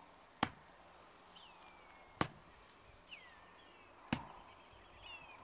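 Three sharp slaps, evenly spaced about two seconds apart, with a bird calling in short falling whistled notes between them.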